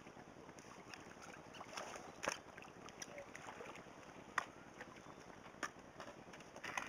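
Faint wind noise on the microphone, with a few short sharp ticks, the loudest about four and a half seconds in.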